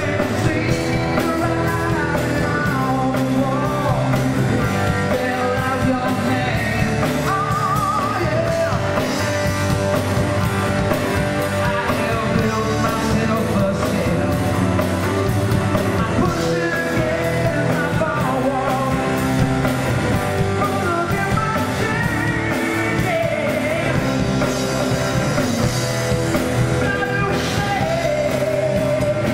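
Live rock band playing a song: a male voice sings over electric guitar, acoustic guitar and a steady drum beat, as heard in the room on a camcorder's microphone.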